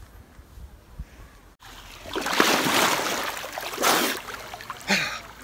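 River water splashing around a man sitting chest-deep in an icy river during a cold plunge, in uneven bursts from about two seconds in, with shorter splashes near four and five seconds.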